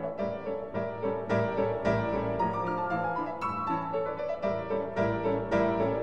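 Background piano music, a steady run of notes.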